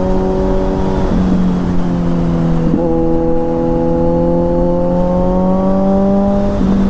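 Motorcycle with an aftermarket full-system exhaust running at highway speed. Its engine note holds steady, dips briefly about a second in and again near three seconds, then slowly climbs in pitch as the bike gains speed. Wind rushes over the microphone throughout.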